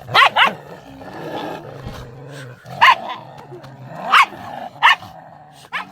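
Indian street dogs (desi dogs) fighting: a steady low growl runs on, broken by about six short, loud barks and snarls, two close together at the start and the rest spaced through the later part.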